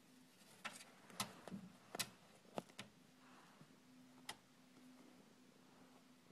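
A cat pawing at a door that stands ajar, its paw and claws against the door and carpet: about half a dozen faint clicks and taps, the loudest about two seconds in, then near silence.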